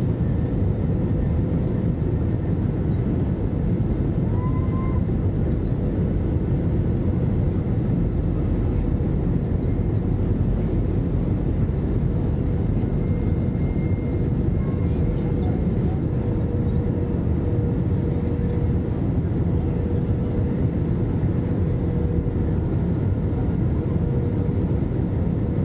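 Steady airliner cabin noise heard from a window seat on approach to land: the low rumble of the jet engines and airflow, with a faint steady hum on top.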